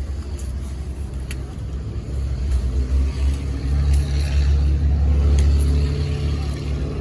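A motor vehicle's engine running close by with a deep low rumble, growing louder from a few seconds in and easing off near the end, as a vehicle passes slowly.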